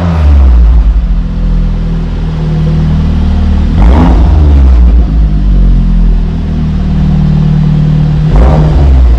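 Audi S3's APR stage 2 tuned turbocharged four-cylinder through a Remus exhaust, running loudly with a deep, steady drone. Two brief sharp noises break in, about four seconds and eight and a half seconds in.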